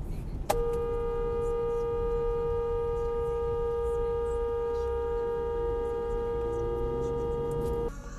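Car horn held down in one long steady blast of about seven seconds, sounded at a slow vehicle ahead. It starts suddenly and cuts off suddenly near the end.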